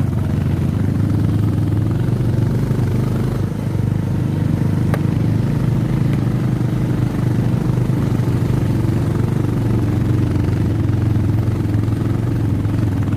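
Motorcycle engine running at a steady pace while riding, with one sharp click about five seconds in.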